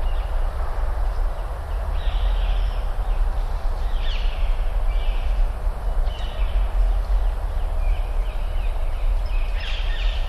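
Outdoor ambience: a steady low rumble with birds chirping every second or two.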